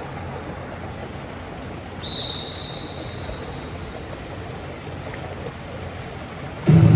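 Steady hiss of an indoor pool hall's ambience, with a single high tone about two seconds in that fades away over a second or so. Loud music starts suddenly just before the end.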